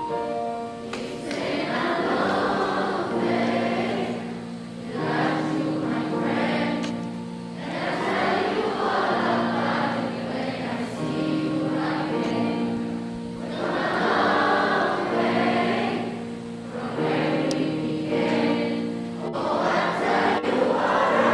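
Slow music: a choir singing in swelling phrases over held chords.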